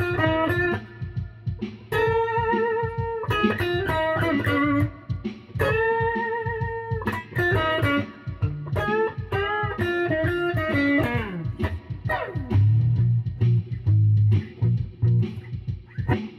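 Electric guitar played solo: held notes with wavering vibrato alternating with quick runs of single notes, a note sliding down in pitch about 11 seconds in, then a repeated low-string riff near the end.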